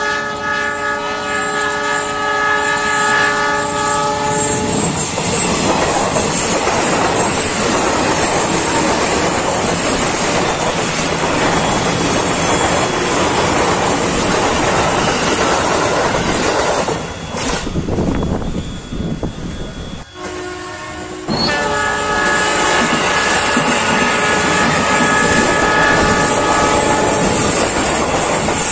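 Battery-powered toy trains running on plastic track, with a continuous dense rattle of wheels and motors. A steady electronic horn tone sounds over it for about the first five seconds and again for several seconds in the last third.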